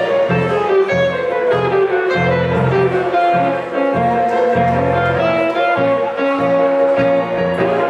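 Live blues from a hollow-body electric guitar and an electric keyboard, with no singing. A melody of held notes runs over a steady line of low bass notes.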